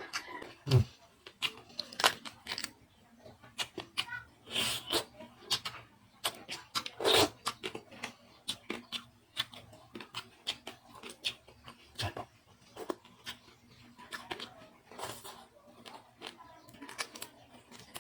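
A person eating spicy seafood close to the microphone: irregular wet chewing and smacking with crunchy clicks, and a few louder crunches.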